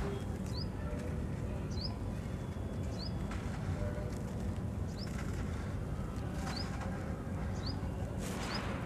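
Dry, sandy cement soil crumbling in the hands and sifting back onto the ground, a soft hiss of falling grains in several short pours over steady low background noise. A small bird repeats a short rising chirp about once a second.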